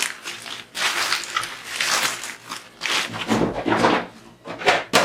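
Plastic toy rifle parts and their packaging being handled: a series of rustles and light knocks.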